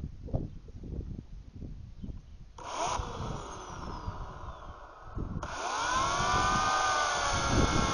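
Oregon CS1500 corded electric chainsaw: after a few seconds of handling knocks it is triggered briefly, then about five seconds in it runs loudly. Its motor pitch drops and levels off as the chain bites into a yucca trunk.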